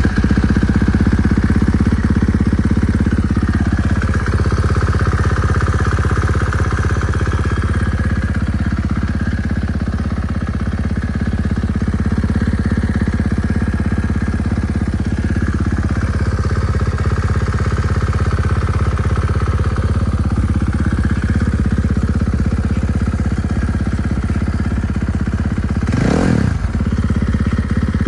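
Husqvarna 450 dirt bike's single-cylinder four-stroke engine idling steadily just after starting, with a short rev blip near the end.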